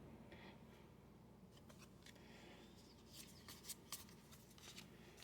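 Near silence, with a few faint ticks and rustles of trading cards being handled in the second half.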